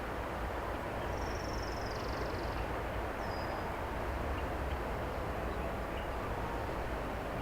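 Steady rumble of an excavator working in the distance. A bird gives a high trill lasting about a second and a half, starting about a second in, then a short high note.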